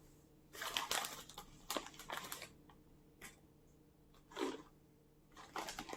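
Thick plastic snack bag rustling and crinkling as it is handled: a cluster of rustles in the first couple of seconds, then two short ones later.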